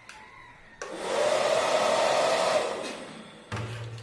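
Automatic bazooka bubble gun's fan whirring as it blows bubbles: it starts suddenly about a second in, runs steadily for about two seconds, then winds down. A short low hum follows near the end.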